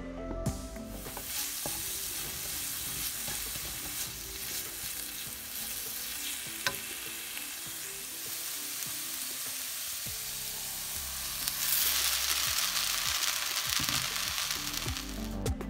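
Shredded carrot and green onion sizzling in oil in a wok, stirred with a wooden spatula that scrapes and taps the pan now and then. The sizzle grows louder about twelve seconds in.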